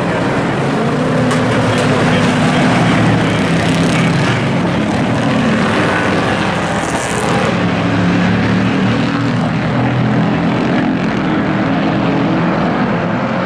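Engines of several racing pickup trucks running at speed around an oval track, a steady drone of many engines together.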